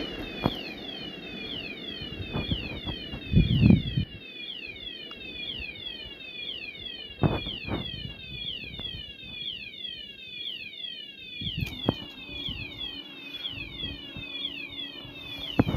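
Electronic level-crossing warning signal sounding a repeated falling chirp, about two to three a second. A few dull low thumps come through, the loudest about three and a half seconds in, and a low steady hum joins about twelve seconds in as the barrier arms begin to lift.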